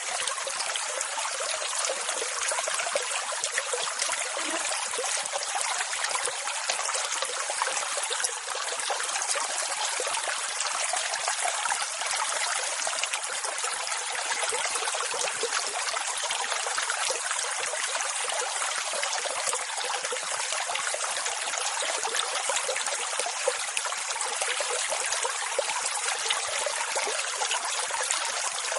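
Continuous rushing, splashing water at a steady level, with no rise and fall of breaking swells and almost no deep rumble, only a bright hiss.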